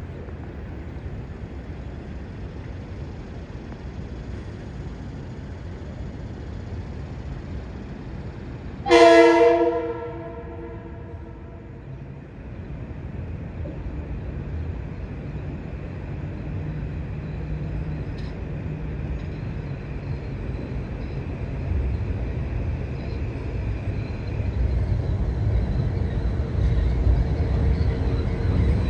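Metro-North commuter train horn sounding one short blast, over the low rumble of trains. The rumble of an approaching train then builds and grows louder toward the end, with a faint steady high whine for a stretch in the middle.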